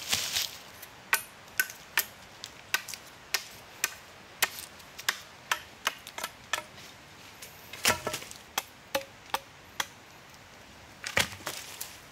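A steady series of sharp chopping knocks, about two a second, with a heavier blow about eight seconds in. After a short pause a last cluster of knocks comes near the end.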